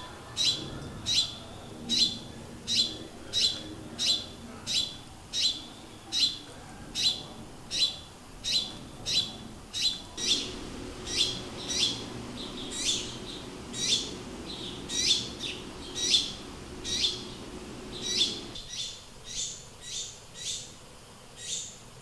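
Fledgling sparrow giving begging calls: short, sharp chirps repeated about twice a second, the hungry young bird calling for its parent to feed it. The calls grow softer and less regular near the end, as the parent feeds it.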